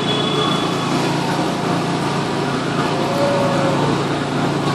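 Steady machinery din of a distribution warehouse floor, with electric forklifts and conveyors running. A brief whine rises and falls about three seconds in.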